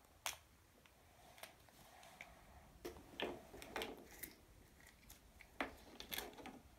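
Faint, scattered clicks and rustles of a small plastic surprise-egg toy capsule being handled and snapped open, and the toy taken out.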